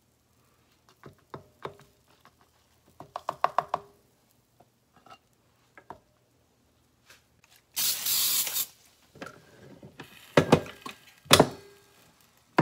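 A Bella Pro Series double waffle maker being filled and shut: scattered light clicks and a quick run of taps, a short hiss, then two loud knocks as the metal lid is closed and latched down.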